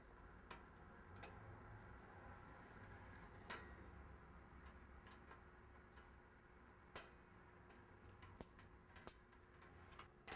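Scattered faint clicks and taps of a wire tomato cage's locking clips being snapped onto its metal rungs, with two louder clicks about three and a half and seven seconds in, over a faint steady room hum.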